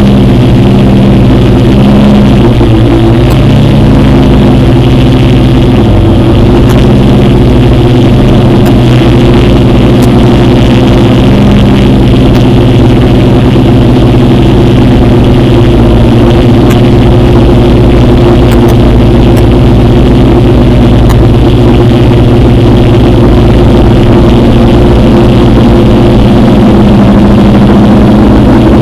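Multirotor drone's electric motors and propellers running, picked up by the camera mounted on the drone itself. Loud and steady, with several motor tones that shift in pitch over the first few seconds as it lifts off and climbs, then hold level.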